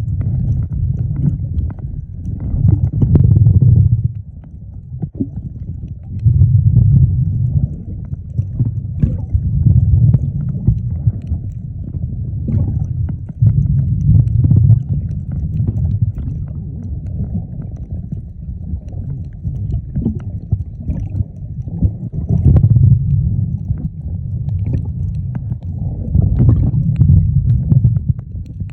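Muffled low rumble of seawater moving against an underwater camera, swelling and easing every few seconds.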